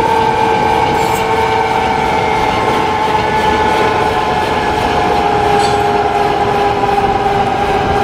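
Bell 205 (Huey) helicopter on the ground with its Lycoming T53 turboshaft running and rotors turning: a loud, steady turbine whine that falls slowly in pitch, over the rush and beat of the rotor.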